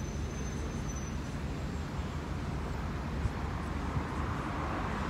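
Steady city road-traffic noise with a low engine rumble. The noise grows louder near the end as a vehicle passes.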